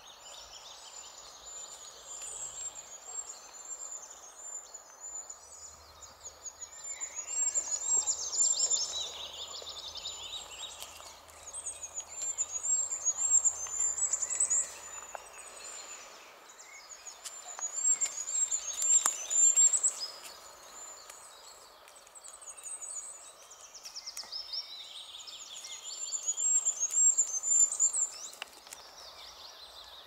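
Songbirds singing in a forest: one bird repeats loud, fast trilled phrases of two to three seconds every few seconds, with fainter chirps from others, over a steady background hiss.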